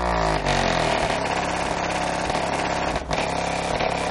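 Two AQ HDC3 15-inch subwoofers on an AQ 3500D amplifier playing loud bass, heard from outside the vehicle as a continuous buzzing drone, with a short dip about three seconds in.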